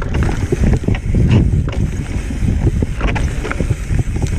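Mountain bike rolling down a rough, rocky dirt trail: tyres crunching over dirt and stones with many small rattles and knocks from the bike, and wind buffeting the microphone.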